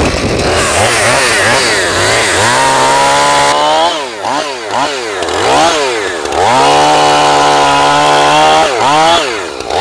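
Husqvarna two-stroke chainsaw revving up and down in short bursts, then held at full throttle for about two seconds at a time while the chain cuts into a tree trunk. It is revved again briefly near the end.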